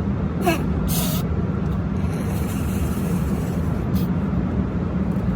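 Steady low rumble of a car driving, heard from inside the cabin, with a brief hiss about a second in.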